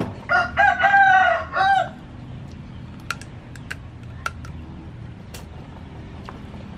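A rooster crowing once, a loud call of several arching syllables lasting about a second and a half near the start. A few sharp clicks follow as crab shell is cracked and picked apart by hand.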